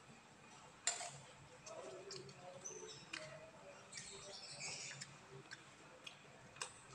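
Eating sounds: a spoon clicks against a plate, sharpest about a second in and again near the end, among soft wet chewing and lip-smacking of rice and young jackfruit stew.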